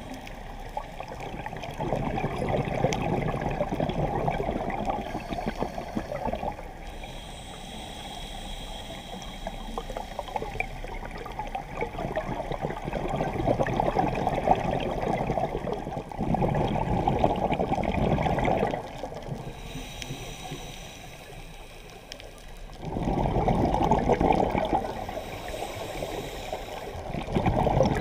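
Scuba diver breathing through a regulator underwater: exhaled bubbles gurgling in bursts of two or three seconds, several times, with quieter stretches between.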